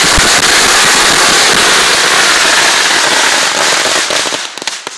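About five hundred firecrackers exploding at once: a loud, dense, continuous crackle of bangs that thins into scattered separate pops near the end.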